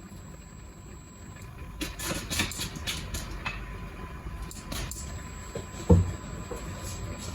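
Kitchen utensil clicking and scraping against a frying pan of frying onions, over a steady low rumble, with one brief, loud thump about six seconds in.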